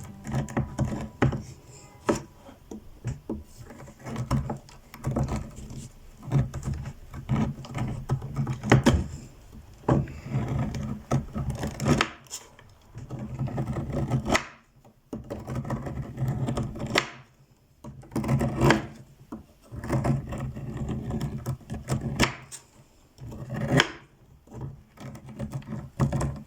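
Household handling sounds: many light knocks and clicks with rubbing as things are handled and put away, broken by two short pauses in the second half.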